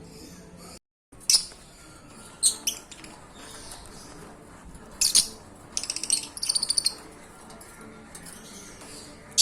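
Lovebirds calling: sharp, shrill chirps every second or two, with a fast chattering run of calls about six seconds in.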